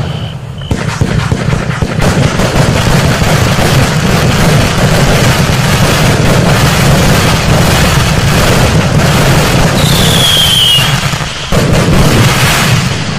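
A 224-shot firework compound cake firing continuously in a dense, rapid string of shots and bursts. About ten seconds in, a short falling whistle sounds over the barrage. Just after eleven seconds the firing briefly eases, then comes back at full strength.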